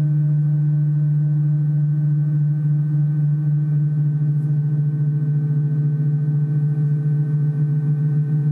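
Large gongs ringing in a low, steady drone, one deep tone strongest with fainter overtones above it; the sound begins to waver slowly near the end as the gongs are played again.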